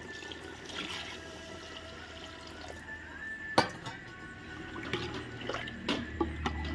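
Water poured in a stream into an aluminium pot of mutton curry, then a metal ladle stirring the curry, with a few sharp clinks against the pot. The loudest clink comes a little past halfway.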